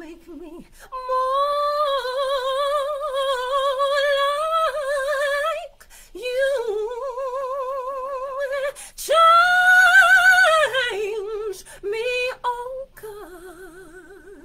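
A woman singing a slow gospel praise song a cappella, solo, in long held notes with a wide vibrato and short breaks between phrases. The highest and loudest note comes about nine seconds in, and the singing turns softer near the end.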